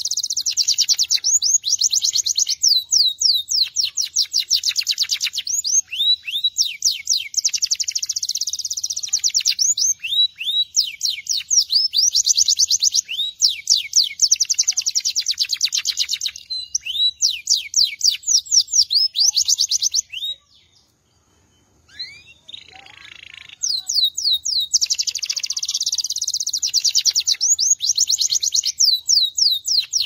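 Domestic canary (a 'Belgian canary') singing: long, fast trilled phrases of high notes, one after another, broken by a brief pause a little after two-thirds of the way through.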